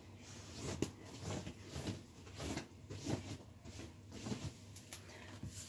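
Soft, repeated rubbing strokes, about two a second, as a surface is wiped by hand with a cloth.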